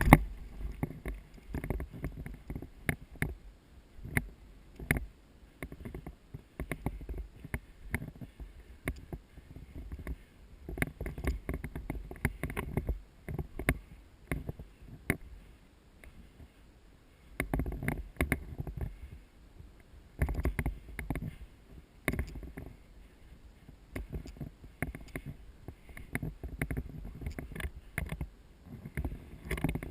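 Rustling and handling noise with many irregular short knocks and clicks and an uneven low rumble, in busier spells and quieter gaps.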